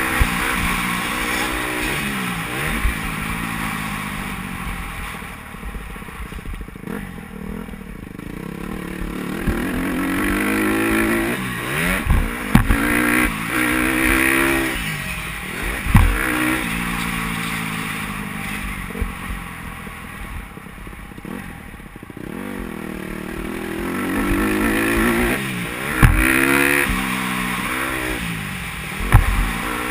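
Motocross dirt bike engine revving up and dropping off repeatedly as the rider accelerates, shifts and rolls off around the track, with a few sharp knocks along the way.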